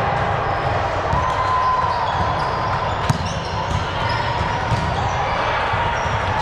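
Indoor volleyball game in a gym hall: balls being hit and bouncing on the court amid a steady clatter and echoing voices, with one sharper thump about three seconds in.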